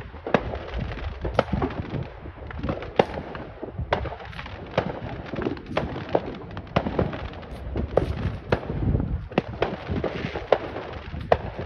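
Fireworks going off in the distance: a string of sharp bangs and pops, about one or two a second, over a low rumble.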